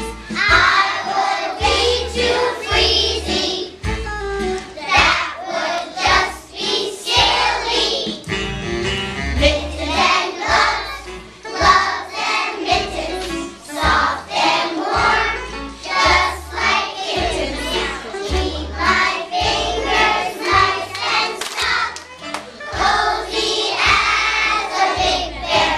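A group of young children singing a song together, over musical accompaniment with repeated low bass notes.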